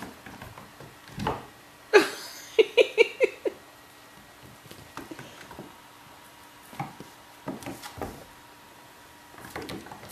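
Young kittens scampering and wrestling on a wooden floor and a floor cushion: light pattering and scattered knocks of small paws. The loudest sound comes about two seconds in, a sudden sharp sound followed by a quick run of five short pitched sounds.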